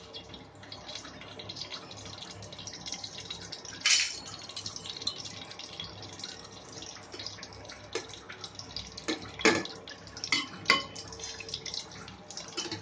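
Whole spices (cinnamon sticks, cloves, cardamom pods) crackling and sizzling in hot oil in an aluminium pressure cooker, with a few louder pops.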